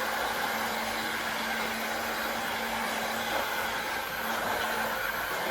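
Heat gun blowing steadily, a constant rush of hot air with a faint steady hum underneath, warming adhesive trim so its 3M tape bonds.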